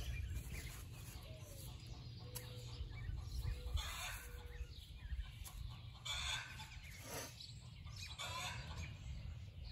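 Backyard hens clucking, with several loud calls a second or two apart from about four seconds in: the cackle of a hen laying an egg.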